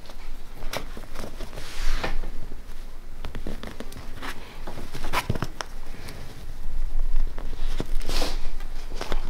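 Hands working an upholstery cushion: a thread is drawn through the fabric and foam with a rasping swish, twice, amid fabric rustling and small handling clicks.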